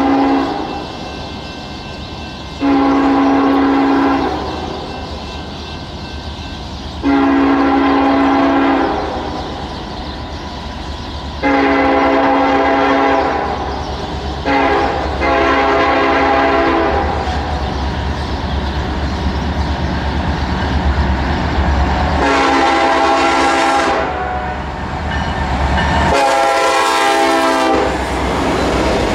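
Norfolk Southern diesel freight locomotive's air horn blowing a string of chord blasts as the train approaches: mostly long ones, with a long-long-short-long run in the middle like a grade-crossing signal. The rumble of the engines and wheels grows until the locomotives pass close near the end, sounding the horn twice more as they go by.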